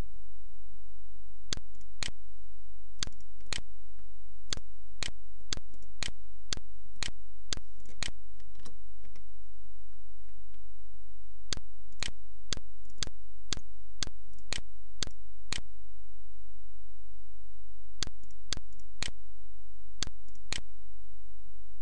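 Sharp clicks at the computer, evenly paced at about two a second in runs, with two pauses of a couple of seconds, over a steady low hum.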